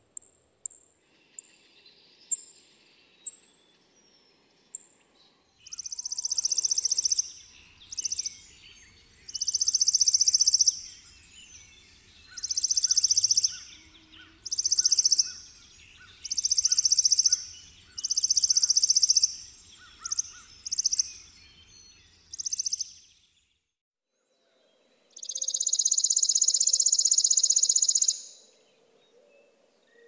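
Chipping sparrow: single high chips that slow down over the first few seconds, then a run of short, rapid, dry trills repeated about every two seconds. After a brief pause, one longer trill of about three seconds comes near the end.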